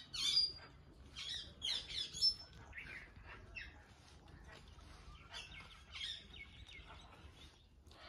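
Indian ringneck parakeets giving short, sharp chirps and chatter, loudest in the first two seconds or so. A thin, steady high note is held for about two seconds past the middle.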